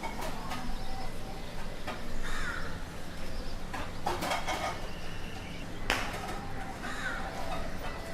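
Street ambience: crows cawing repeatedly over a steady low rumble. A single sharp knock sounds about six seconds in.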